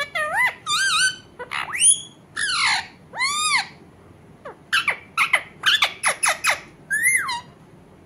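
Rose-ringed (Indian ringneck) parakeet calling: a series of short squawks and whistles that arch up and down in pitch, then a quick run of about eight short chirps, and one last arching call near the end.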